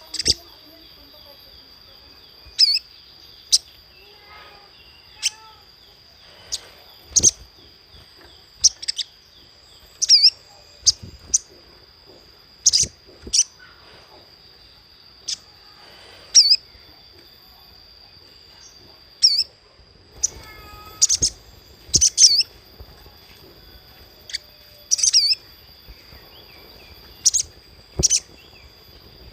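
Little spiderhunter (sogok ontong) calling: short, sharp single chirps at irregular intervals, now and then two in quick succession, over a steady high-pitched tone.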